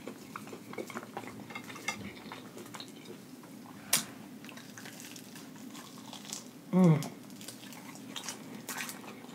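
Close-up eating sounds: one sharp, crunchy bite into a fried piece coated in crushed guacamole chips about four seconds in, among soft chewing and small mouth clicks, with a short hummed "mm" just before seven seconds.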